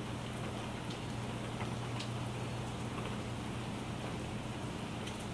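Steady rain falling in a thunderstorm, with individual drops ticking now and then. A steady low hum runs underneath.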